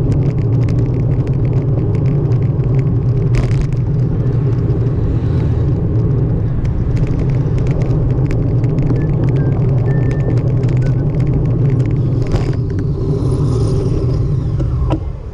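Wind rumbling on the microphone of a moving bicycle's camera, with road noise and many light ticks and rattles. The rumble drops suddenly near the end.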